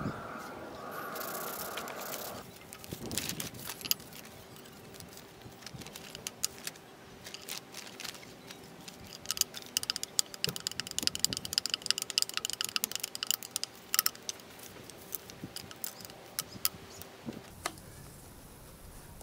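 Wooden craft pieces clicking and knocking as they are handled and set down on a tiled tabletop and paper: irregular light taps, thickest in a quick flurry near the middle.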